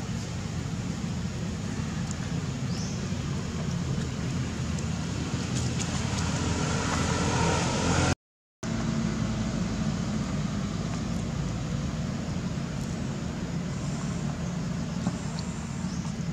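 Steady low outdoor background rumble, broken by a sudden half-second of silence about eight seconds in.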